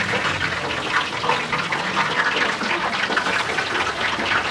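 Food cooking at a street stall: a steady, dense hissing and crackling like bubbling or sizzling.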